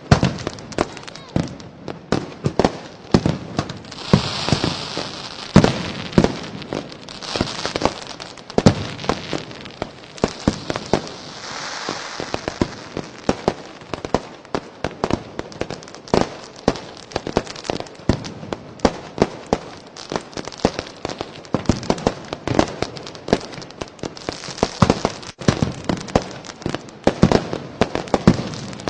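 Fireworks and firecrackers going off in quick succession, many sharp bangs and pops one after another. Several stretches of hissing, a second or two each, come in among the bangs.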